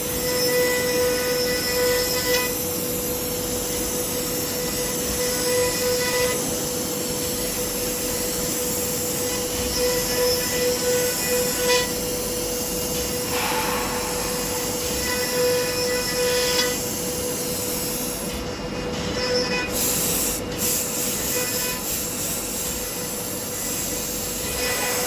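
CNC router's spindle running with a steady high whine while the bit cuts MDF, over a constant hiss of cutting. Every few seconds the whine grows stronger with higher overtones for a stretch of one to three seconds, then falls back.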